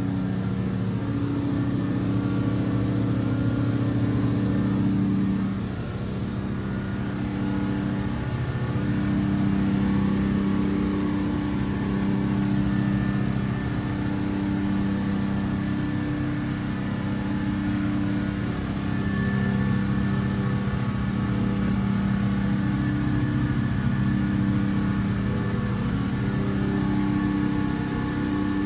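Twin Volvo Penta KAD300 diesel sterndrive engines running flat out at just over 4,000 RPM, the boat at almost 31 knots on a top-speed run. A steady engine drone that dips slightly about five seconds in.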